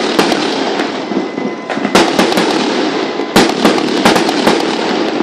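Firecrackers going off in a dense, continuous crackle, with irregular sharper bangs throughout, thinning briefly about a second in and thickening again after about two seconds.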